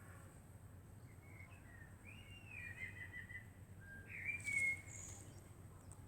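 Faint bird chirps, several short calls and glides over a low steady background hum, loudest around the middle.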